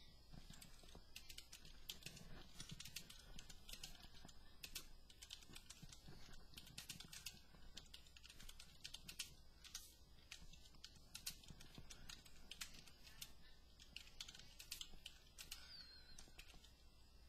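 Faint typing on a computer keyboard: a continuous run of keystroke clicks at an uneven pace.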